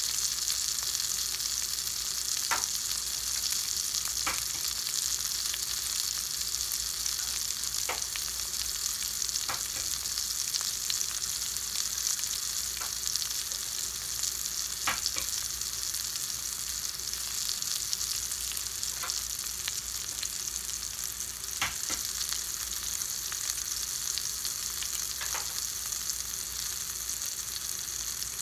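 Potato wedges frying in hot fat in a stainless-steel skillet: a steady sizzle with a small spattering pop every few seconds.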